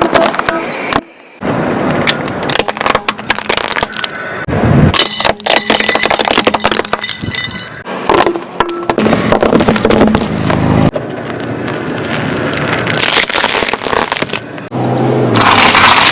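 Objects being crushed under a car's wheels: rapid cracking and crunching in several separate bouts, with a brief gap about a second in and the loudest crunching near the end.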